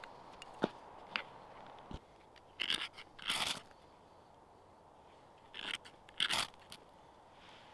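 Ferro rod struck hard with a scraper, four rasping strikes in two pairs, throwing sparks onto tinder to light a fire. A couple of sharp clicks come first as the rod is freed from the knife sheath.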